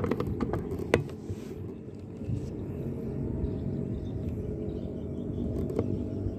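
Handling noise from a rifle and its scope-mounted camera as they are moved and panned: a couple of sharp clicks in the first second, then a steady low rumble.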